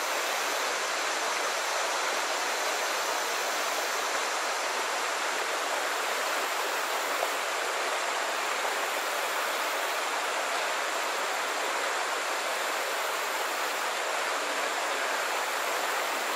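Steady rushing of shallow creek water running over and around rocks.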